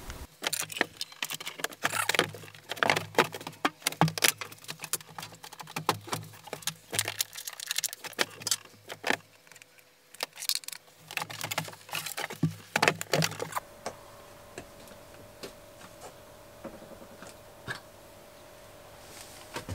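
Irregular metallic clinks, clicks and knocks of hand tools being handled and the wooden engine cover of a sailboat being opened. About two-thirds of the way in these die away to a faint steady hum with occasional ticks.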